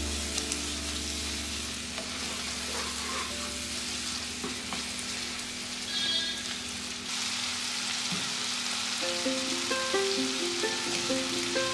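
Onion-tomato masala with ginger-garlic paste sizzling in oil in a nonstick wok, stirred with a spatula that scrapes the pan. Background music comes back in near the end.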